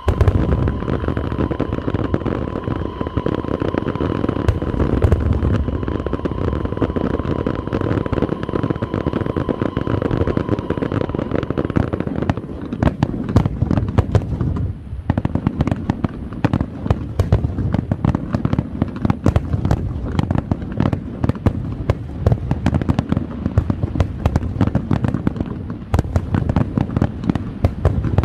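Fireworks going off in a dense barrage: rapid, overlapping bangs and crackling that start suddenly. A steady high whistle runs over the first twelve seconds or so, then stops, and the bangs thin out briefly at about fifteen seconds before picking up again.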